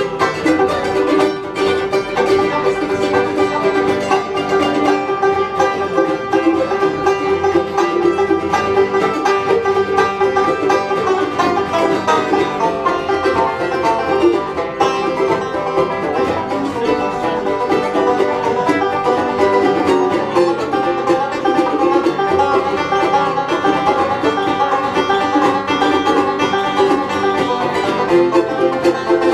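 Instrumental break played on banjo and acoustic guitar: banjo picking over strummed guitar chords, live and unamplified-sounding.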